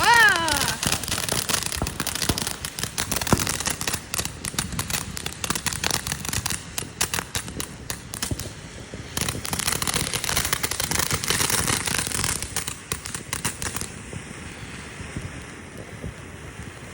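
TNT Fireworks 'Rex' novelty firework going off with dense crackling, opening with a short falling whistle. About 14 seconds in the crackle thins out into a steadier hiss.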